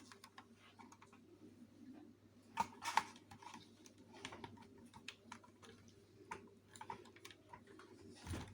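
Scattered light clicks and taps from hands working the fabric at a sewing machine, irregular rather than a steady run of stitching, with a couple of louder clicks about three seconds in.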